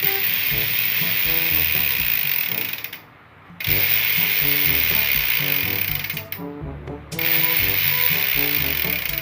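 Bicycle rear hub freewheeling, its freehub ratchet buzzing loudly in three spells of a few seconds each, each one dying away as the spin slows.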